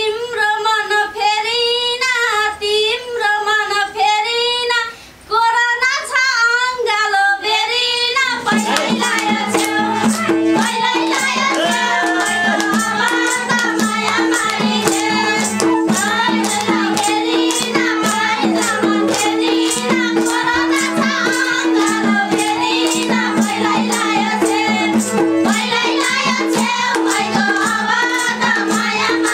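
Live Nepali dohori folk singing. A woman sings a solo line with little accompaniment. About eight seconds in, the group joins with steady held harmonium tones, a fast beat of madal drums and clapping, and several voices singing together.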